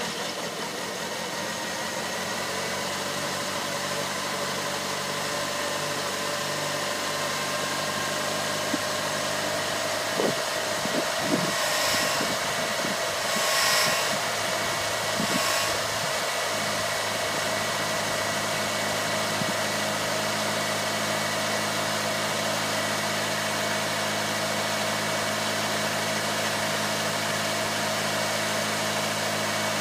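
1988 Ford Mustang LX four-cylinder engine idling steadily. A few brief clicks and rustling bursts come between about ten and sixteen seconds in.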